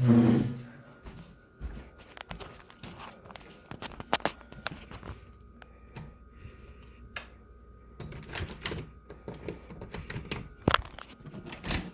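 Irregular light clicks and taps, scattered and busiest near the end, over a faint steady hum.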